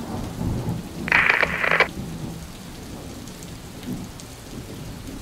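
Rain and thunder sound effect: steady rain hiss with a low sound underneath, and a loud hissing burst lasting under a second about a second in.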